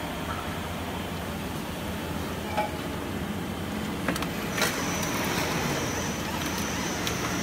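Spiral round duct forming machine running, its electric motor and forming rollers rolling galvanized steel strip into spiral duct with a steady mechanical hum. A few sharp metallic clicks come about four and a half seconds in, and a thin high whine joins soon after.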